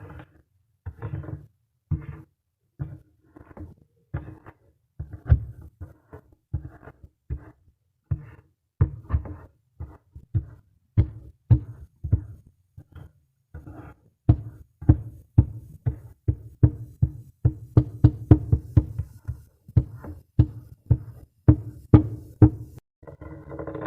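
Kinetic sand being handled: a long series of soft, dull knocks and thuds, separate at first and coming faster and more densely in the second half.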